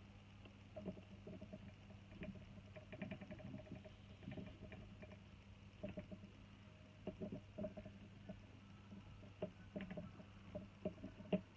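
Soldering iron reflowing joints on a laptop power adapter's circuit board: small irregular clicks, scrapes and crackles of the tip and solder on the board, over a steady low electrical hum.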